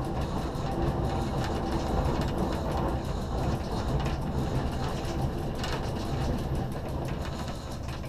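SNCF Z 6400 electric multiple unit running at speed, heard from inside the driver's cab: a steady rumble of wheels on rail, with a few sharp clicks scattered through it.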